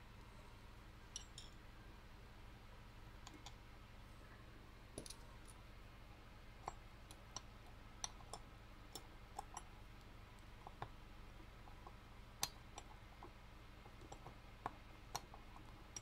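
Faint, irregular small clicks of a screwdriver and screw working against a finned metal heat sink as it is screwed down, over a faint steady hum.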